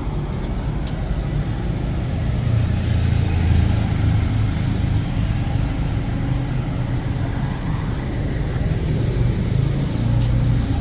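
Motor vehicle running, a steady low engine drone that swells about two seconds in and again near the end.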